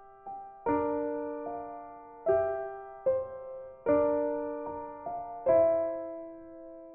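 Background music: soft piano chords struck about once a second, each ringing out and fading.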